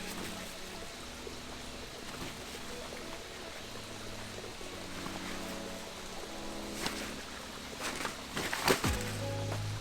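Soft background music with slow, held chords over a steady hiss, with a few sharp clicks and taps near the end.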